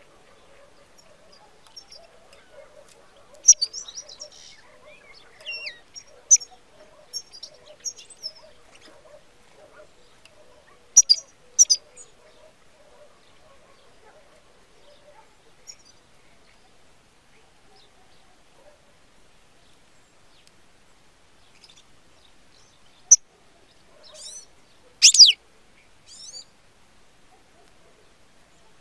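European goldfinch calling from a decoy cage: short, sharp, high chirps and twitters in scattered groups, with a few loud calls around the middle and a longer loud twitter near the end.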